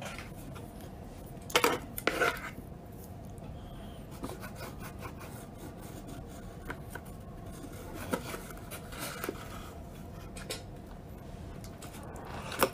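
Plastic knife and fork scraping and tapping against food in disposable takeout containers, with a couple of louder scrapes about two seconds in and scattered small clicks after.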